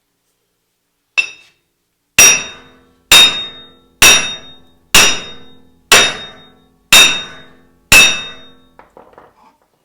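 A heavy hammer striking a seized steel wheel hub bearing assembly in a Dodge Ram 1500 4x4 steering knuckle: one light tap, then seven hard blows about a second apart, each ringing metallically. The hub is stuck and is not coming loose under the blows, and a few small metal clinks follow.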